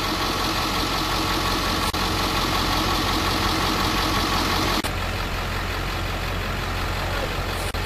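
Steady rushing wind noise over the low hum of an idling vehicle engine, broken by brief dropouts where the footage is cut.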